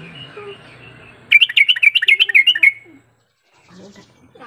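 Yellow-vented bulbul singing one quick phrase of about a dozen fast chattering notes, lasting a little over a second and starting about a second in.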